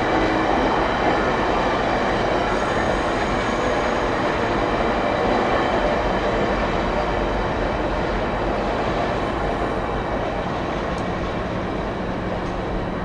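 Budd-built stainless-steel passenger cars of VIA Rail's Canadian rolling past on departure, a steady rumble of wheels on rail. It eases off over the last few seconds as the rear observation car goes by.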